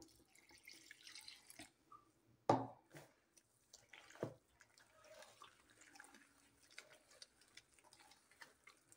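Faint wet squelching and splatting of a hand kneading and turning thick bambara-nut (okpa) batter as water is worked in, with two louder splats about two and a half and four seconds in.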